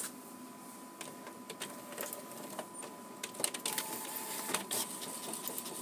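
Office multifunction printer running: a thin steady whine under irregular clicks and clatter that get busier about halfway through.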